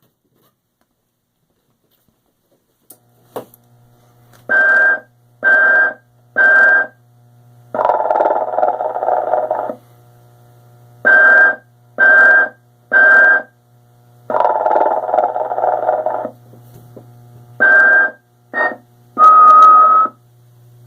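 Telco Motion-ettes Sleeping Snoring Mrs. Santa Claus animated figure starting up with a click about three seconds in, then playing its sleeping sounds over a low steady hum: three short whistles followed by a long snore, a cycle that repeats.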